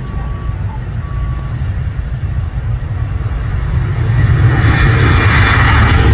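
Jet noise from a Boeing 737-900ER's CFM56-7B turbofans at takeoff thrust, growing louder and brighter from about four seconds in as the airliner lifts off. Underneath is a steady low rumble, and in the first second and a half a faint beep repeats about once a second.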